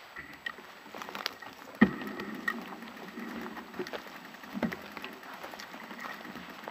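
Bicycle rolling over a mossy forest floor, its frame and camera mount rattling and clicking unevenly, with one loud knock about two seconds in.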